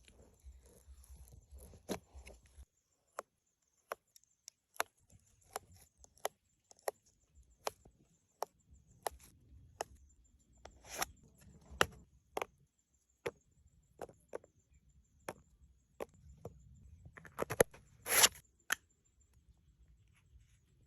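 Repeated chopping strokes, one to two sharp strikes a second, with the loudest strike near the end.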